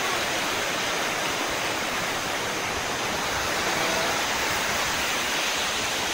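Steady, unbroken rush and roar of Iguazú Falls: fast rapids pouring over rocks at the brink of the falls.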